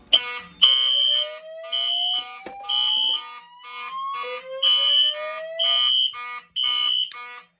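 Fire alarm notification appliances going into alarm as a pull station is pulled: a horn sounds in short pulses about once a second over a tone that sweeps slowly upward and starts again, the slow whoop that precedes a voice evacuation message.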